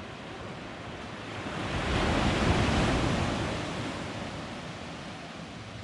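Small waves breaking on a sandy beach: a wash of surf that swells to a peak between two and three seconds in, then fades back.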